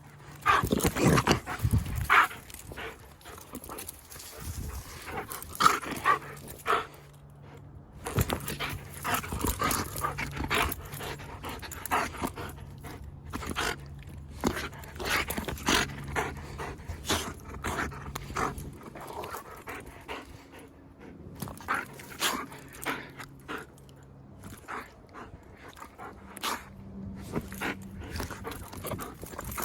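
Wolfdog panting at play, with many irregular short knocks and scuffs, the loudest about a second in.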